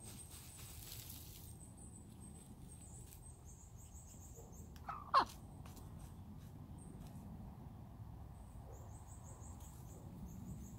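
Hens dust bathing in loose dirt with a faint rustle near the start. About halfway through a single short bird call drops steeply in pitch and is the loudest sound. Under it run a faint low rumble and faint high chirping.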